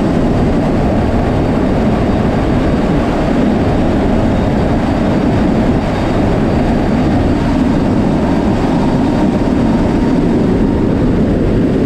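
Steady, loud drone of a C-130J Super Hercules's turboprop engines and propellers, mixed with wind rushing past the open rear cargo ramp, heard from inside the cargo hold in flight.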